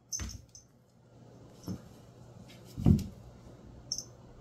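A few separate dull thumps, some with light clicks on top. The loudest comes about three seconds in.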